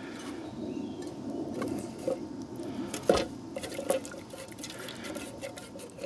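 Hazel-wood ash and hot water being stirred together in an aluminium mess tin into a wet slurry: a steady sloshing, scraping liquid sound with a few knocks against the tin.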